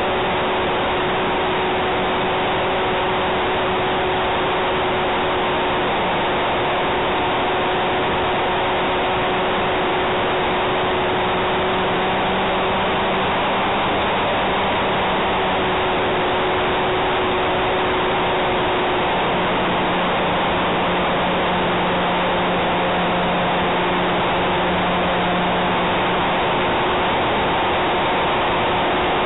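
RC model plane's motor and propeller running steadily in flight, heard from a camera on board: a constant hum and whine under the rush of air.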